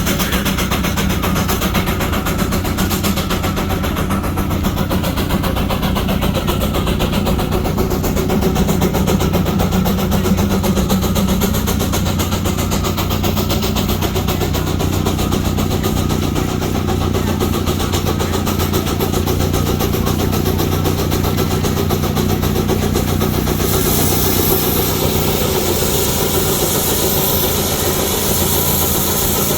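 Antique steam traction engine running steadily with a continuous low drone. A hiss grows louder about three-quarters of the way through.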